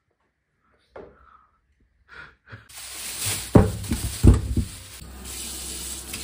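Whole cod dropping out of a plastic bag into a stainless steel sink with a few heavy thuds and bag rustling, followed by the tap running steadily over the fish.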